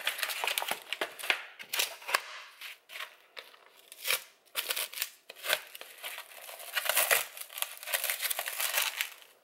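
Plastic food packaging crinkling in irregular bursts as it is handled, with a few light knocks among them.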